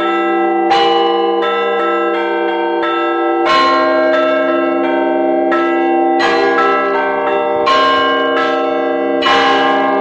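A set of Russian Orthodox church bells, from small bells up to a 660 kg bell, rung together in a peal. The small bells are struck in quick repeating patterns over the long ringing hum of the larger bells, and a heavier low stroke comes every one and a half to three seconds.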